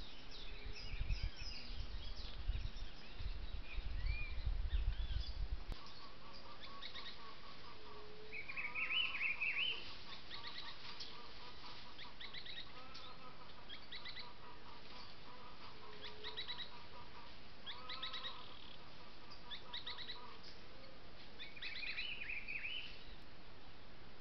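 Several wild birds calling in woodland: repeated short high chirps and brief warbled phrases, some sung several times over. A low rumbling noise in the first six seconds stops abruptly.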